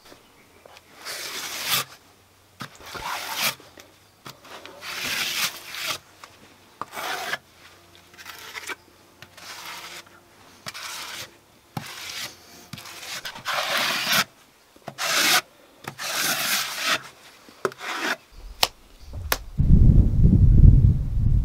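A trowel scraping and smoothing wet clay plaster on an earth wall, about a dozen strokes, one every second or two. Near the end a loud low rumble of wind on the microphone takes over.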